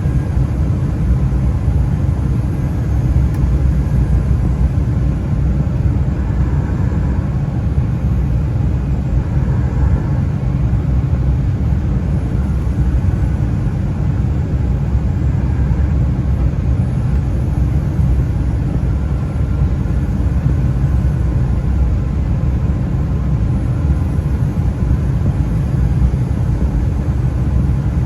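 Cabin noise inside an Embraer E175 regional jet: a steady low rumble of the engines and airflow, unchanging throughout.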